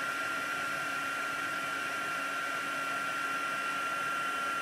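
Embossing heat tool blowing hot air steadily, with a thin high whine over the rush of air, as it melts gold embossing powder on a stamped card.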